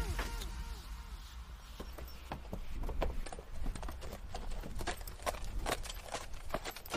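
Galloping horse hoofbeats: a quick, uneven run of clops.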